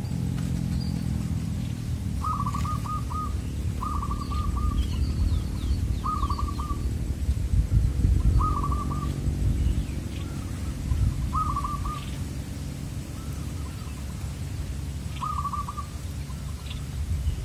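Zebra dove (perkutut) cooing, about six short trilled phrases of quick repeated notes every few seconds. A low steady rumble runs underneath, with faint chirps of small birds.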